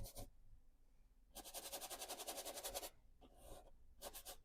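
Faint, quick scrubbing of a brush working oil paint, in rapid even strokes of about a dozen a second for a second and a half, then a shorter run near the end.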